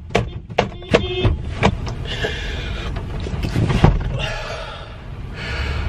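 A man screaming and yelling in a rage, strained and high-pitched, in several drawn-out bursts. A quick series of sharp thumps comes in the first second and a half.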